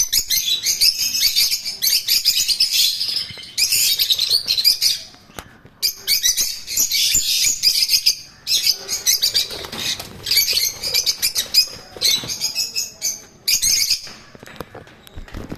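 A flock of African lovebirds chattering with shrill, high chirps in bursts of a second or two, broken by short pauses.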